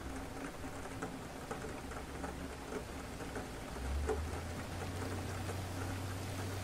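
Steady rain pattering, with the separate ticks of individual drops. Under it, a low rumble of distant thunder comes and goes and swells about four seconds in.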